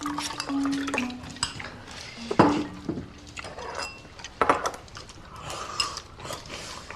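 Dishes and eating utensils clinking and tapping as people eat at a table: a string of short, irregular clinks.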